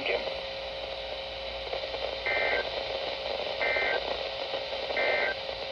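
Weather radio receiver hissing with static, then three short, identical bursts of EAS SAME data tones about 1.3 s apart, short enough to be the End-of-Message code that closes the alert. A faint steady tone runs underneath.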